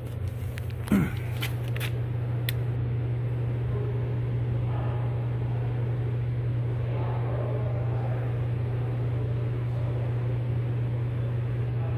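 Car engine idling with a steady low hum, and a brief knock about a second in.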